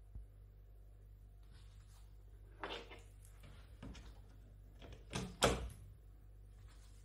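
A few short knocks and clicks, the loudest pair about five seconds in, over a faint steady low hum.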